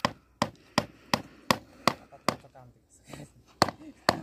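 Sharp knocks repeating evenly at about three a second, with a short pause a little before three seconds in.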